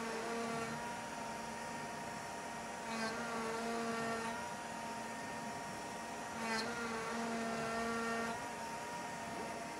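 Shapeoko Pro CNC router carving wood: a steady machine hum made of several tones, which break off and shift about every three seconds as the cut goes on.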